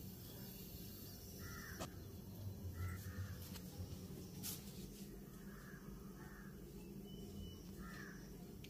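Crows cawing faintly, a handful of short harsh caws spread across several seconds, with a couple of light clicks in between.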